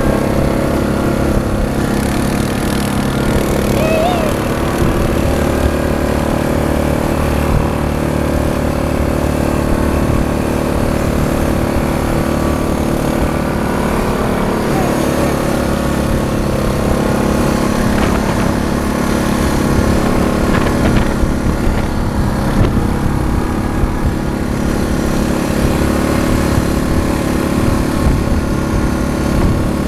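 ATV (quad bike) engine running steadily under way, with an even drone that holds at one pitch throughout.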